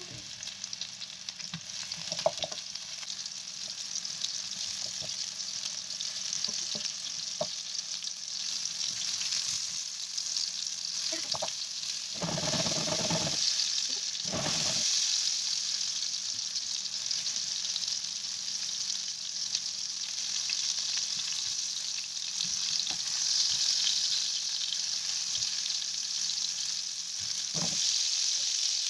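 Meatballs sizzling in hot oil in a frying pan, a steady hiss with occasional small pops. About halfway through, a few seconds of louder clatter as the meatballs are moved around the pan.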